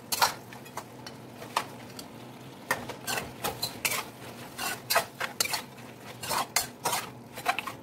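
Long metal spoon stirring chunks of pork and pork stomach in a large metal cooking pot, clinking and scraping against the pot's side and bottom in irregular knocks.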